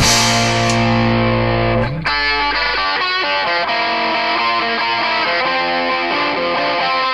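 Rock song intro on distorted electric guitar: a chord rings out with a cymbal crash for about two seconds, then the guitar moves into a quicker riff of shorter notes.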